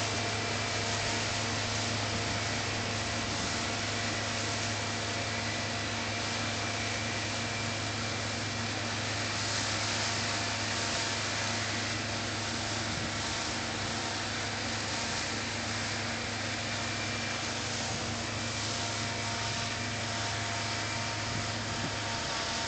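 New Holland TX36 combine harvester running steadily while threshing wheat: a constant mechanical hum with a few steady tones held throughout.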